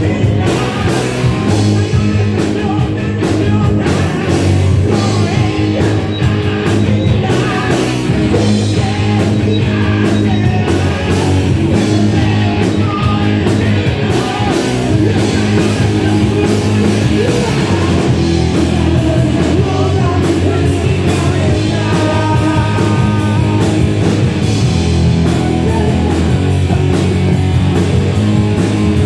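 Loud rock music from a full band with drums, and singing.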